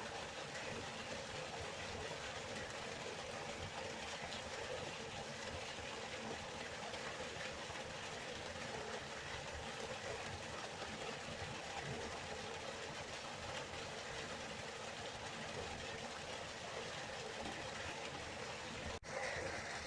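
River water flowing, a steady rushing noise with no let-up, broken only by a very brief dropout near the end.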